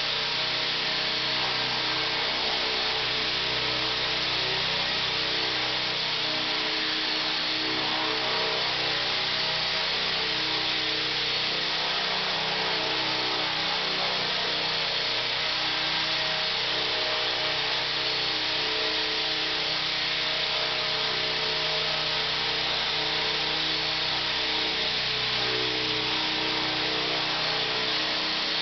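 ESKY Belt-CP electric RC helicopter hovering: its electric motor, drive gears and spinning rotor give a steady whine over a rushing hiss, holding an even pitch and level.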